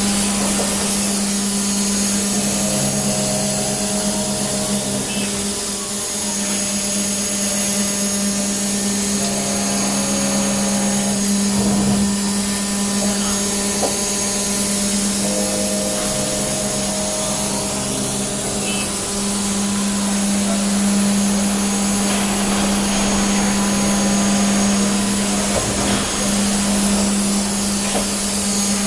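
Five-axis CNC router running, its spindle giving a steady hum while it machines a block held in a vise. Higher whining tones from the axis drives come and go every few seconds as the head moves.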